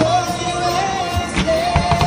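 A pop song with a singer holding a long wavering note. Near the end, firework bursts start going off over it with low booms and crackles.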